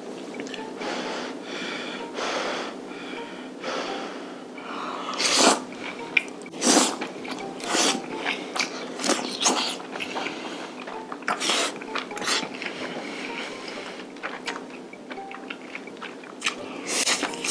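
Close-miked mukbang eating: chewing and several loud, sharp sucking slurps as saucy pieces of stir-fried webfoot octopus are drawn into the mouth, along with hissing breaths.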